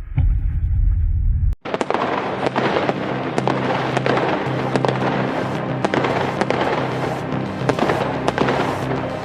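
Fireworks popping and crackling in quick succession over background music with a steady bass line. The pops start right after a brief drop-out about one and a half seconds in, before which only the music plays.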